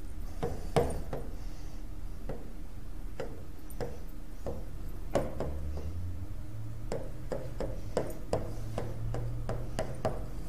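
A run of light, sharp clicks and taps at irregular spacing, coming faster in the second half, over a low steady hum.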